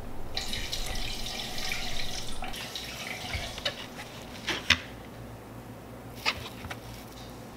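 Kitchen faucet running into a sink for about two seconds, then dying away, followed by a few light knocks.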